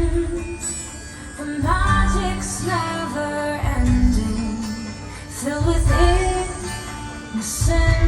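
Show soundtrack music with a woman singing a sustained melody over plucked-string accompaniment, with deep low thuds about every two seconds.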